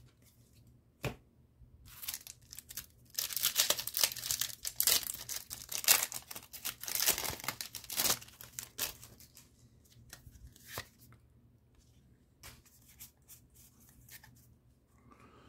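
Foil wrapper of a Pokémon TCG booster pack being torn open and crinkled, dense crackling from about two seconds in to about nine seconds, then fainter scattered rustles and clicks as the cards are handled.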